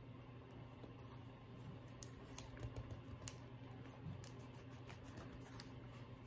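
Faint, scattered taps and clicks of fingers handling a roll of washi tape and pressing the tape down onto a paper planner page, a cluster of them about two to three and a half seconds in.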